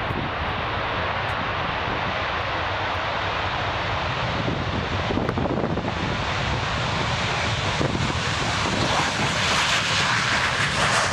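B-2 Spirit stealth bomber's four turbofan jet engines running at high power as it rolls down the runway, a dense steady jet noise that grows louder and harsher toward the end as the bomber passes close by.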